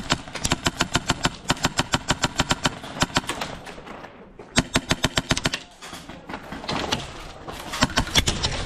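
Airsoft guns firing rapid full-auto bursts, about a dozen shots a second, broken by short pauses, with a brief lull a little before halfway.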